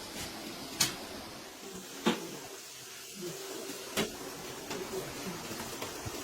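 Three sharp knocks, spaced about a second or two apart, with fainter clicks and a faint steady hum between them.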